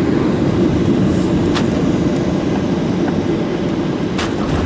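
Steady roar of a Boeing 737-800's CFM56-7B jet engines heard from inside the cabin, with two brief sharp knocks, one about a second and a half in and one near the end.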